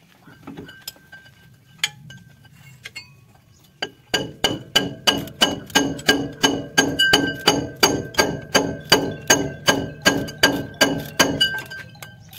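Socket wrench worked on the axle nut of a steel track roller on a crawler harvester: a few scattered clicks, then from about four seconds in a steady run of sharp metallic clinks, about three a second, each ringing briefly, stopping a little before the end.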